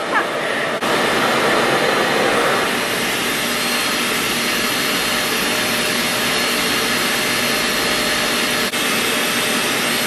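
Revair reverse hair dryer running steadily on its cool setting: an even rush of air from its suction motor as the wand draws a section of hair in to dry it.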